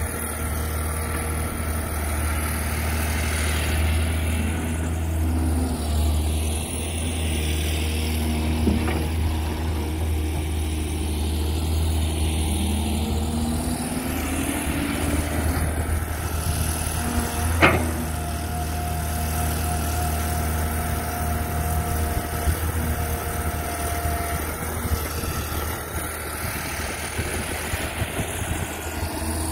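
Caterpillar 320D hydraulic excavator running steadily as it digs and swings, with a deep engine hum and a hydraulic whine that rises and falls as the arm works. Two sharp knocks cut through, the louder one about two-thirds of the way in.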